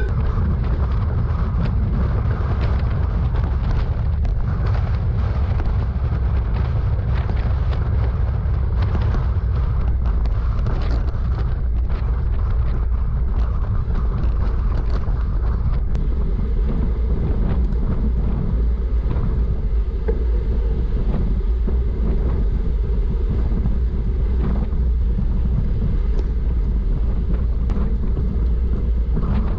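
Wind buffeting a GoPro action camera's microphone on a road bike riding at speed: a loud, steady low rumble, with scattered clicks and rattles from the bike over the road.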